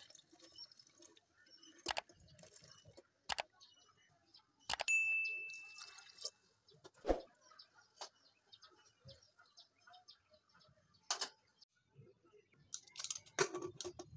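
Scattered knocks and clinks on a stainless steel pressure cooker as soaked beans are handled into it. One strike about five seconds in rings on with a short metallic ding, and a quick run of clatter comes near the end as the lid is fitted.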